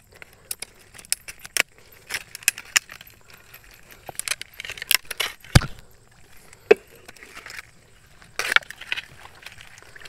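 Irregular sharp clicks, taps and rustles as a mud crab is handled in a hand net on wet mud at its burrow, with the loudest knock about halfway through.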